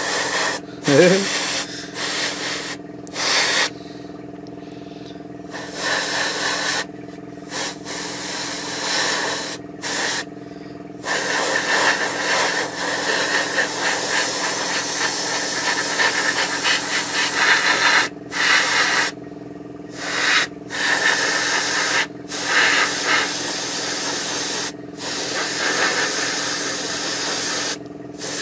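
Airbrush spraying paint, its hiss starting and stopping again and again as the trigger is pressed and released, in bursts from under a second to several seconds long. A steady hum runs underneath.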